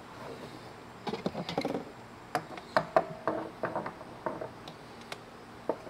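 Sharp clicks and light knocks, crowded between about one and four seconds in, from a brass bulkhead fitting being handled and turned in a hole drilled in a plastic rain barrel.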